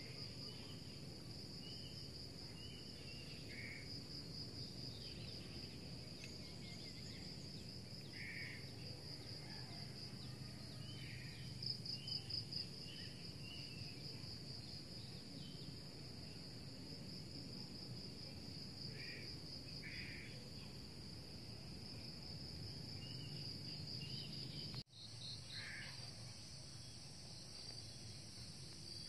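Insects chirring in a steady, high, finely pulsing trill, with a few short higher chirps scattered through it. The sound briefly cuts out near the end.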